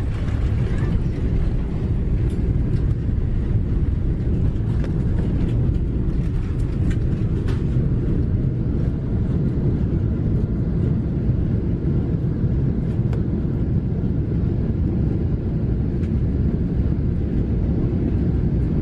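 Steady loud rumble inside an airliner's cabin as it rolls along the runway after landing, with faint clicks and rattles now and then in the first half.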